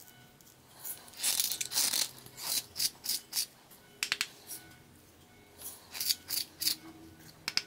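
Clear plastic salt grinder with an adjustable ceramic rotor crunching coarse salt as its top is twisted: a dense stretch of gritty grinding, then a click, then a few separate short crunches about a third of a second apart.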